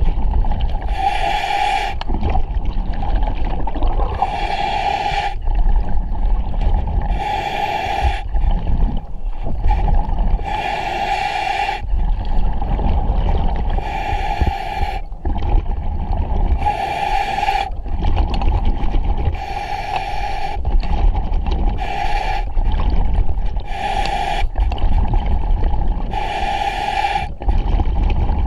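A diver breathing underwater through a demand regulator: a hissing, bubbling breath cycle repeats about every three seconds over a steady low rumble.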